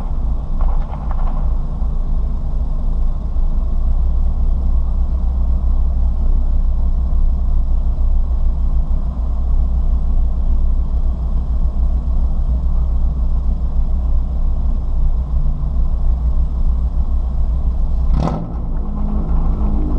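Ford Fiesta ST heard from inside the cabin at speed: steady, loud engine and road rumble. A single sharp knock comes about eighteen seconds in, followed by a change in engine pitch.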